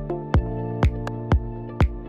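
Background electronic music with a steady beat, about two beats a second, over held synth tones.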